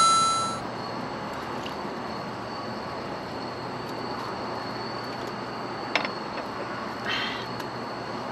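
A short, bright ringing ding at the very start, then a steady outdoor background hiss with a faint, thin, high steady tone. There is a single click about six seconds in and a brief scratchy rustle about a second later.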